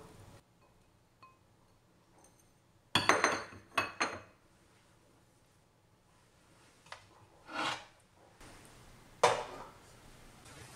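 Kitchen utensil knocking against ceramic dishes and a claypot: a quick cluster of sharp clinks about three seconds in, a softer scrape about halfway through, and one more sharp clink near the end.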